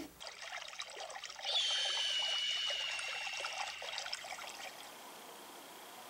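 Liquid trickling, beginning as a spatter of small crackly ticks and settling about a second and a half in into a steady high ringing tone that sinks slightly and fades.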